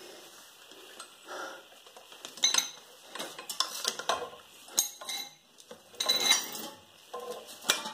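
Hand tools clinking and tapping on metal: several irregular, sharp metallic knocks with a brief ring.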